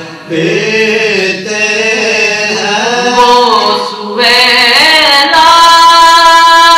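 Group of male voices singing an Urdu na'at without instruments, in bending melodic phrases. About four seconds in, the voices rise to a louder long held note.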